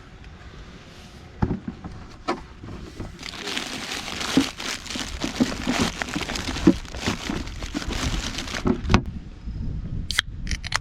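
Crinkling and rustling of something being handled, with many small knocks and clicks, densest in the middle few seconds.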